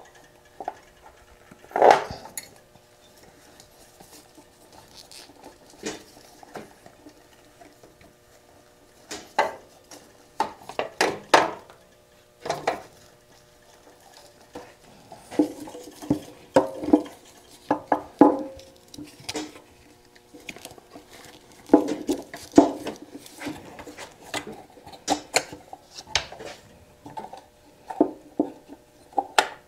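Scattered clicks, knocks and light clatter of hard plastic and metal parts handled and pushed into place as a motorcycle's igniter unit is fitted by hand around the battery cage, in short clusters with pauses between.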